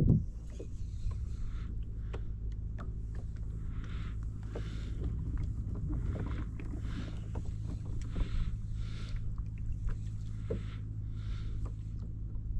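Water lapping against a small canoe's hull in short, soft splashes about once a second, with faint small knocks, over a steady low rumble.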